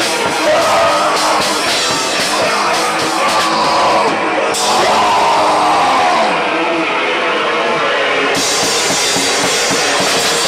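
Metal band playing loud in a rehearsal room: a drum kit pounding under amplified electric guitars, one continuous dense wall of sound.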